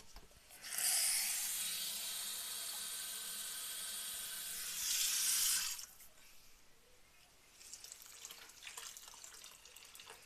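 Water running into a pot of herbs and spices for about five seconds, swelling just before it stops abruptly: more water being added for the cough tea.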